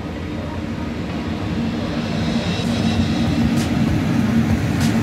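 MÁV class V43 (431) electric locomotive hauling a passenger train past at close range, a steady low hum growing louder as it nears. A couple of sharp clicks come in the second half.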